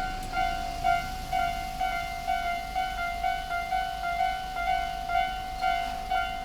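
Japanese railway level-crossing electronic warning alarm ringing in a steady repeating ding, about two strikes a second. This is an older, unusual version of the standard crossing tone, in which one of its two sounds is lower and a single pitch.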